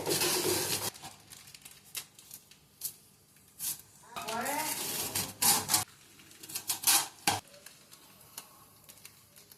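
Handling noise from unwrapping an aluminium door: rustling and scraping of packaging, scattered clicks and clatters of the metal frame, and a rising pitched squeal about four seconds in.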